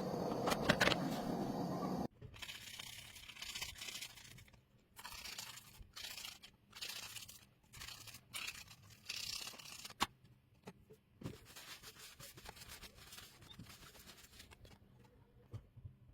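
Intermittent crinkling and scraping of materials being handled, with one sharp click about ten seconds in. A loud steady noise fills the first two seconds and then cuts off abruptly.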